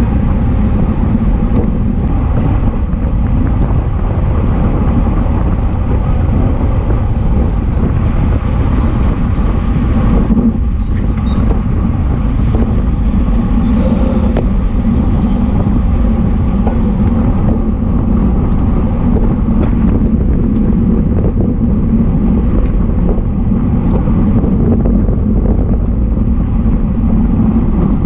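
Steady wind rush and road rumble on the microphone of a camera mounted on a moving racing bicycle, riding at speed among other road cyclists.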